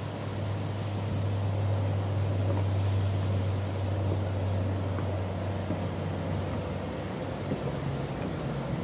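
Steady low hum under an even rushing noise, a constant outdoor background with no clear events.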